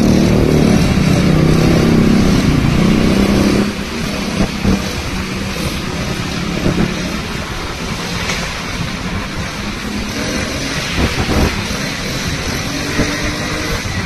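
A two-wheeler's engine running at steady high revs while riding at speed. About four seconds in the engine note drops away, leaving a steady rush of road and wind noise with a few short knocks.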